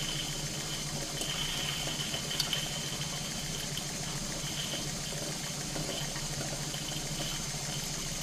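Stuart S50 model steam mill engine running slowly and quietly on steam from a gas-fired Stuart 501 boiler. Its exhaust steam gurgles into the chuff pot over a steady low hum.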